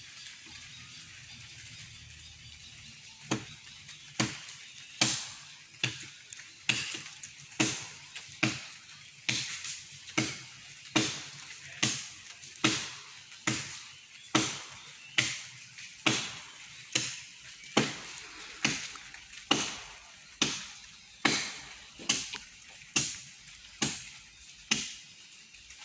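Chopping into wood by hand with a blade: a long run of sharp, evenly spaced blows, a little under one a second, starting about three seconds in.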